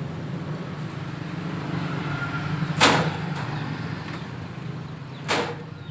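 A steady low machine hum, with two sharp knocks: a loud one about three seconds in and a second one near the end.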